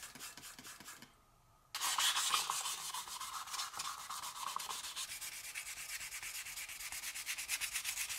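Fine P1200 wet-or-dry sandpaper rubbed by hand over the wet painted metal hull of a tin toy boat, quick back-and-forth scraping strokes. A few faint strokes, a short pause, then steady fast sanding from about two seconds in.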